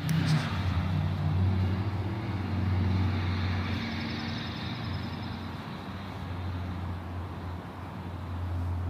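Steady low rumble of road traffic, loudest in the first few seconds and then slowly easing.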